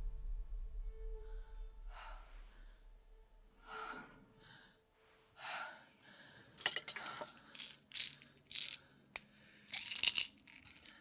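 A low music drone fades away; a woman takes a few heavy breaths, then plastic prescription pill bottles are handled in a run of sharp clicks and rattles through the second half.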